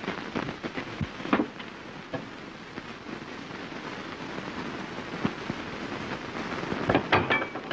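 Steady hiss and crackle of an early-1930s optical film soundtrack, dotted with small clicks. A few louder knocks come about a second and a half in and again near the end.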